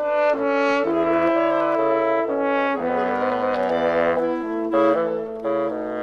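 Woodwind quintet playing: flute, oboe, clarinet, bassoon and French horn in several voices of sustained, moving notes.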